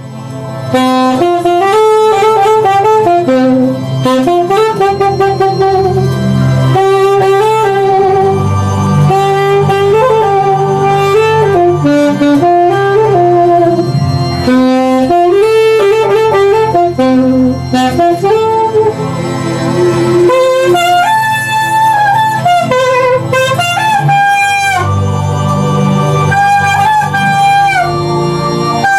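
Instrumental break in a Yoruba gospel praise song: the band plays on without singing, a lead melody of held and stepping notes over a steady bass line.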